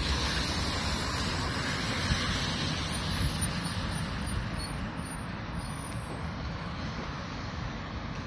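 Road traffic on a rain-wet street: passing cars with a steady hiss of tyres on wet asphalt, a little louder in the first few seconds and easing off.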